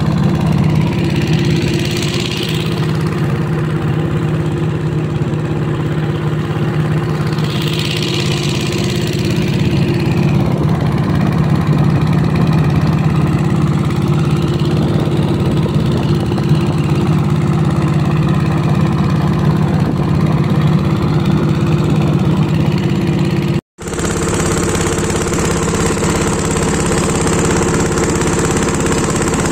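Small river boat's motor running steadily under way, a constant low hum with the wash of water and air. It is cut off for a moment about three-quarters of the way through, then continues.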